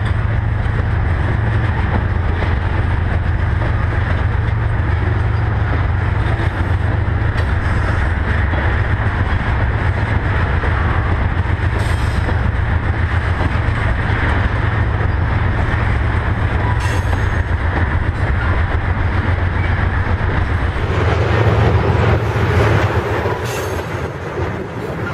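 Freight train of tank cars rolling past at trackside: a steady, loud rumble of steel wheels on the rails, with a few brief sharp clicks from the wheels along the way.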